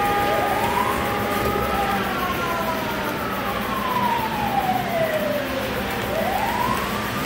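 A wailing siren, rising and falling slowly in pitch. It climbs for about two seconds, falls away over the next four, and begins to climb again near the end.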